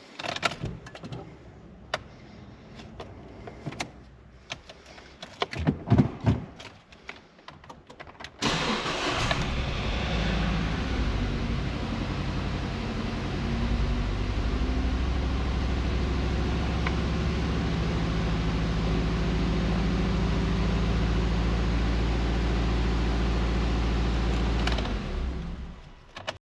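Nissan HR16DE 1.6-litre four-cylinder engine, just refitted with a new timing chain, starting about eight seconds in and then idling steadily, until it cuts out near the end. Before it starts there are scattered clicks and knocks.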